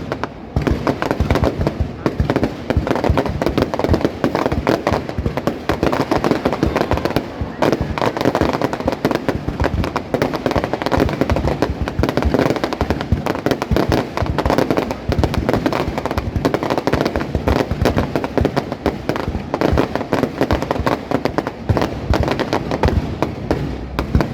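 Aerial fireworks display: shells bursting one after another in a dense, unbroken crackle of bangs with no let-up.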